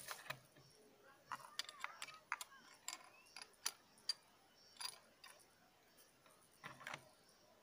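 Scattered small clicks and light metallic ticks from a scoped bolt-action .30-06 rifle being handled on its rest, a dozen or so irregular taps with quiet between them.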